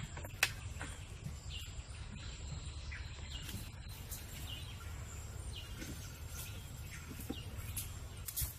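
Outdoor ambience: a low steady rumble with short high chirps coming every second or so, and a few scattered sharp clicks.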